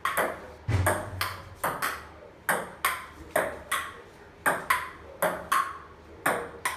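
Table tennis rally: the ball clicks sharply off the paddles and bounces on a wooden dining table, about three hits a second without a break.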